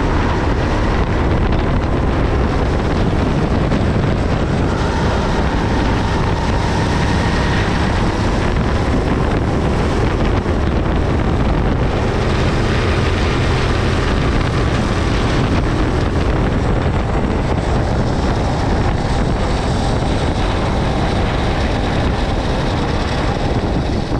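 Kart engine running steadily at track speed, with wind buffeting the microphone.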